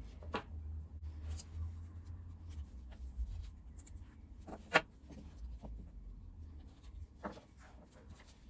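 Small steel chainsaw clutch parts (clutch shoes and springs) and tools clicking and scraping on a wooden workbench as they are handled. There are a few light knocks, the sharpest a little under five seconds in.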